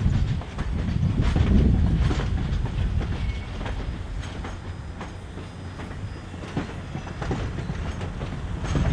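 Passenger cars rolling slowly through a rail yard: a low rumble of wheels on track with irregular clicks and clunks as the wheels pass rail joints and switches.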